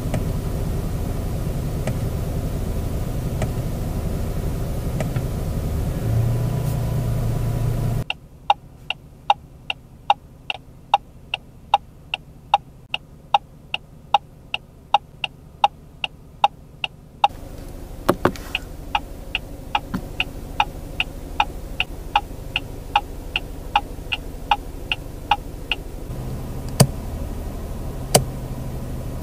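A steady low hum inside the car for about eight seconds. Then the indicator ticks evenly, about twice a second, through most of the rest. Near the end the low hum returns with two single clicks as the light stalk is turned.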